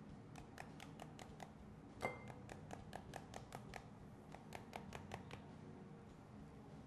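Wooden spoon beating the back of a halved pomegranate held over a glass bowl to knock the seeds out. It makes a quick run of light knocks, about five a second, with one stronger knock about two seconds in and a short pause at about four seconds.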